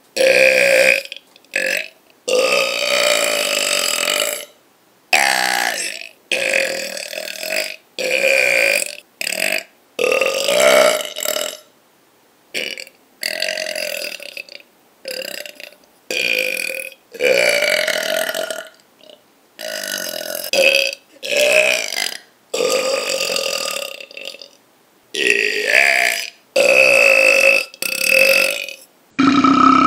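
A person burping over and over: more than twenty loud burps in quick succession, some short and some drawn out to about two seconds, separated by brief gaps.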